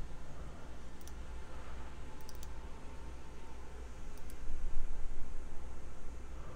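A few sharp computer mouse clicks, a single one and then small clusters, over a steady low hum.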